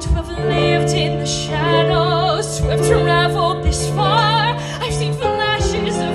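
A woman singing a musical-theatre ballad live into a handheld microphone, her held notes carrying a wide vibrato, over a sustained instrumental accompaniment.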